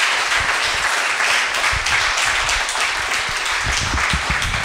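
Audience applauding: many people clapping together in a steady, dense patter.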